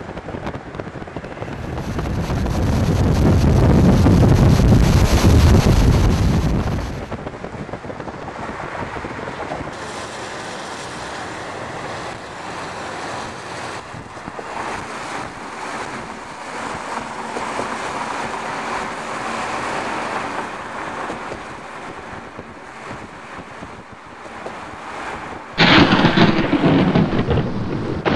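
Storm wind blowing, with a deep rumbling swell in the first few seconds that dies away about seven seconds in, leaving a steadier windy hiss. Near the end a sudden loud crash of thunder breaks in with rain.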